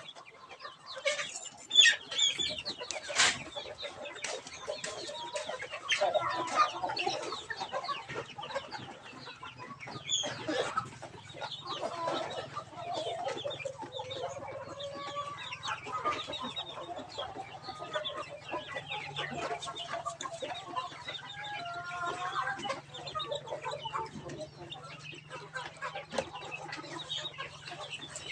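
A flock of young heritage chickens clucking and chirping continuously as they peck at feed in a wooden trough, with scattered sharp clicks of beaks striking the feed and trough. A steady low hum runs underneath.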